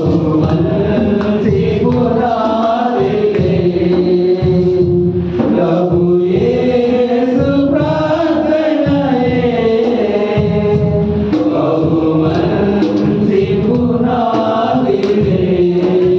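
A man singing a Telugu Christian devotional song into a handheld microphone, one voice with long held notes that slide up and down in pitch.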